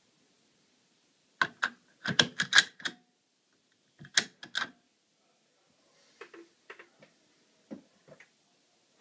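Sharp plastic clicks and snaps from a car seat-belt buckle fitted with a protective cover as it is worked by hand: a quick run of clicks about a second and a half in, another short run around four seconds, then fainter scattered clicks near the end.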